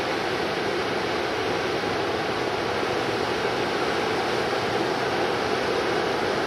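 Steady wash of breaking ocean surf, an even rushing noise with no single wave crash standing out.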